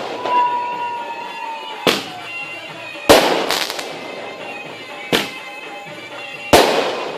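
Aerial fireworks bursting: five sharp bangs a second or so apart, the two loudest about three seconds and six and a half seconds in, each trailing off in a short rumble.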